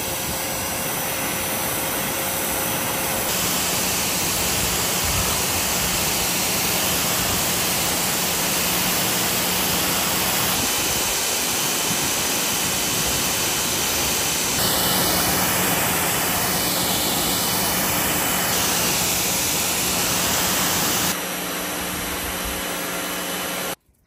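Water spraying hard from a hose up into the air as a shower for macaws, a loud steady hiss. Its tone shifts abruptly several times, and it cuts off sharply just before the end.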